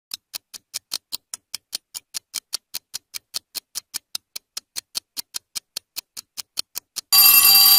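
Quiz countdown timer sound effect ticking evenly at about five ticks a second, then a bell rings loudly near the end, marking that answering time is up.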